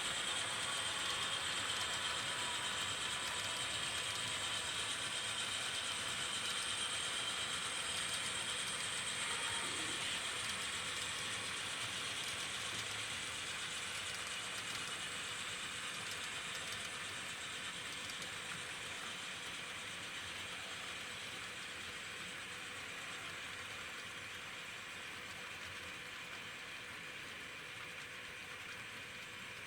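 HO scale model diesel locomotive running along layout track: a steady mechanical whine of its motor and gears with light clicking of the wheels on the rails, slowly fading over the second half.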